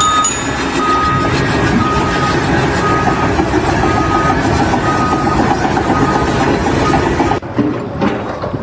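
Reversing alarm on a truck or site machine beeping about once a second over the noise of its running engine. It cuts off abruptly near the end.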